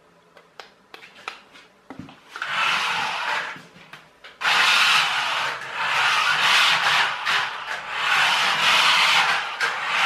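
Radio-controlled toy pickup truck (a converted friction-powered toy) driving on a hard floor, its small electric motor, plastic gears and wheels running. There are a few light clicks at first, a short run about two seconds in, then a loud continuous run from about four and a half seconds in.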